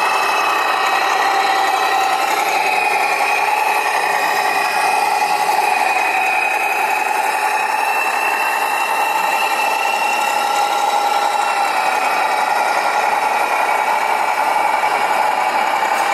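Radio-controlled scale truck running, giving a steady buzzing, engine-like drone whose pitch wavers slightly up and down.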